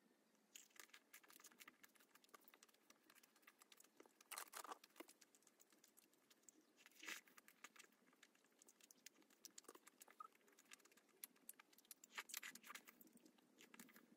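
Faint chewing of fried sweet and sour pork (tangsuyuk): a run of small crackling clicks, with louder crunches about 4 s, 7 s and 12 s in.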